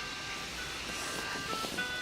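Alarm clock playing its electronic melody, a simple tune of clear beeping notes stepping from one pitch to the next.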